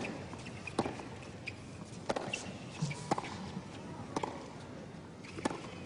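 Sharp pops of a tennis ball being struck and bouncing on a hard court, roughly one a second, over a low crowd murmur.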